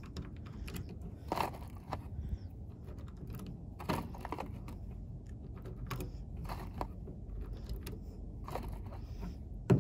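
Irregular small clicks of .22 LR cartridges being pressed one at a time into a ProMag 18-round Glock 44 magazine whose spring is very stiff, so each round goes in with effort. The sharpest click comes near the end.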